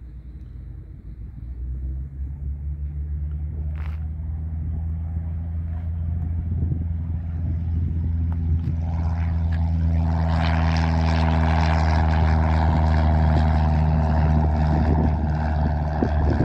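Single-engine light plane's piston engine and propeller running at full takeoff power, a steady engine note growing louder over about ten seconds as the aircraft takes off and climbs toward and past the microphone, then holding loud.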